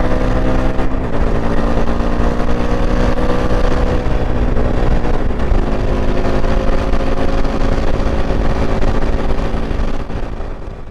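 Indian FTR 1200's liquid-cooled V-twin engine pulling under acceleration. Its pitch climbs slowly, drops suddenly with an upshift about a second in and again about five seconds in, then climbs again before fading out at the end.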